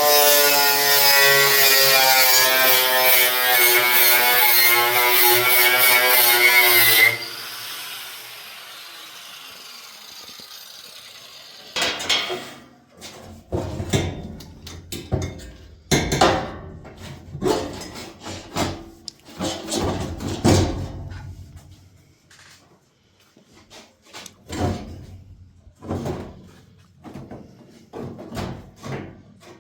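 A power drill runs steadily for about seven seconds, stops suddenly and spins down. After a pause comes a string of irregular short scraping and knocking sounds from work on the body panels.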